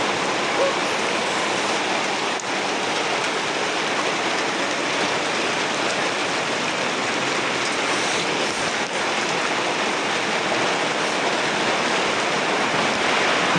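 Heavy rain falling steadily, an even hiss of rain with no breaks.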